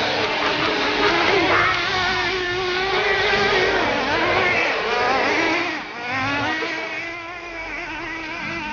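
Small nitro engines of RC trucks buzzing at a high pitch and revving, the note wavering up and down as the throttle is worked; it drops somewhat about six seconds in.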